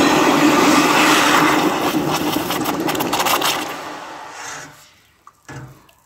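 Hot copper ingot being quenched in a bucket of water, hissing and boiling the water around it. The sizzle is loud at first, turns crackly after about two seconds and dies away about five seconds in as the bar cools.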